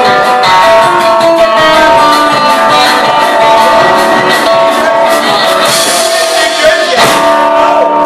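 One-man band playing live: guitar over a regular kick-drum beat, with one louder hit about seven seconds in.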